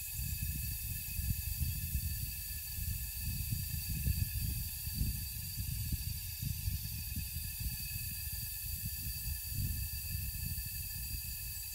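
Forest ambience: a steady insect chorus with a high hiss and a few held high tones, over an uneven low rumble of wind on the microphone.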